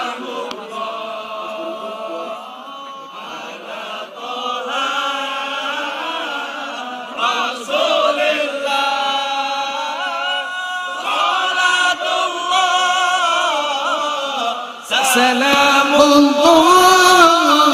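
Sholawat, Islamic devotional song, sung in long drawn-out melodic phrases by many voices. About fifteen seconds in it grows louder and drumbeats come in.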